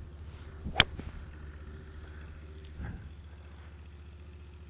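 Golf tee shot: a club swung through, with a short swish, then one sharp crack as it strikes the ball about a second in.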